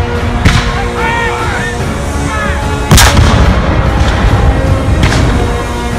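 Black-powder field cannons firing blank charges: three heavy shots, about half a second, three seconds and five seconds in, the middle one the loudest.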